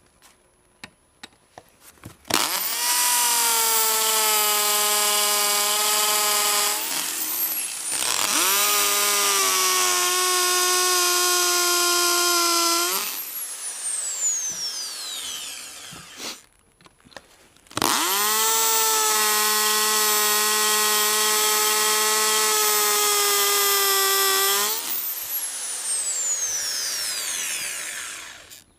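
Electric drill, set to hammer mode, drilling out a stripped axle bolt in an inline skate frame: three runs of a steady motor whine of about five to seven seconds each, each ending in a falling whine as the trigger is released and the chuck spins down.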